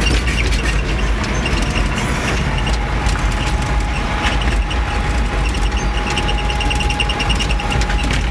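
Farm tractor engine running steadily with a deep low rumble. About two and a half seconds in a steady whistle joins it, with a fast run of short high chirps over it.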